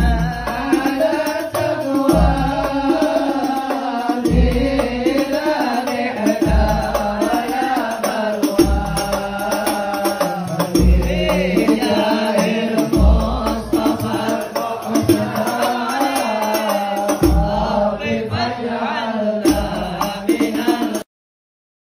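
Group of men's voices chanting sholawat in unison, accompanied by hand-held frame drums with a deep stroke about every two seconds. The singing and drumming cut off suddenly near the end.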